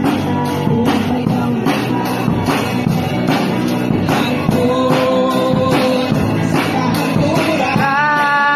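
Live worship band playing through a PA: electric guitar, a drum kit with cymbals keeping a steady beat, and a voice singing, with long held notes about five seconds in and near the end.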